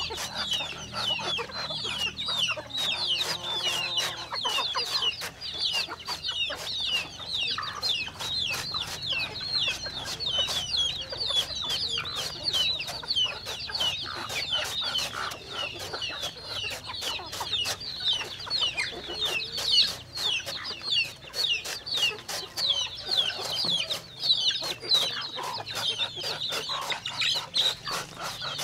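A flock of chickens calling, with many short, high chirps overlapping throughout and frequent short clicks among them.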